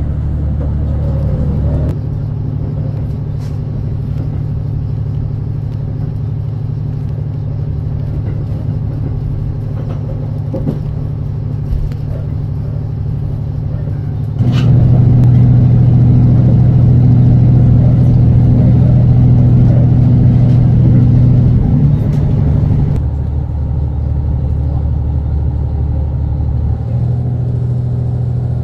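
Resort Shirakami train's diesel engine running under the cabin floor: a steady low drone that steps up louder about halfway through, holds for several seconds, then drops back to its earlier level.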